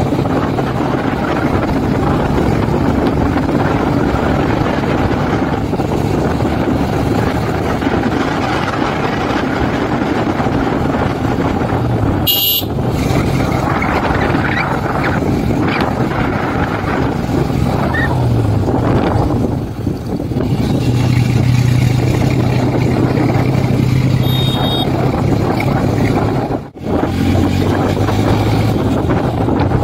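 Honda SP single-cylinder motorcycle engine running steadily under way, heard over rushing wind and road noise. There is a brief sharp high sound about twelve seconds in.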